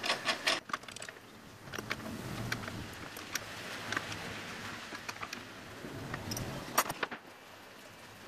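Small metal clicks and clinks of an adjustable wrench, nut and washers being worked onto a threaded rod, the table-height adjusting screw of a homemade drum sander. The clicks come scattered, several close together at the start and a sharper pair near the end.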